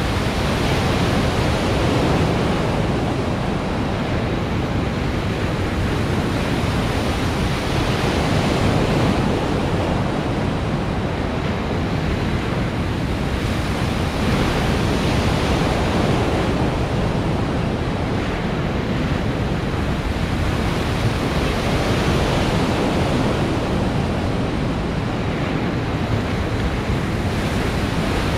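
Machine-made waves in an artificial surf pool, rushing and breaking, the noise swelling and easing every several seconds.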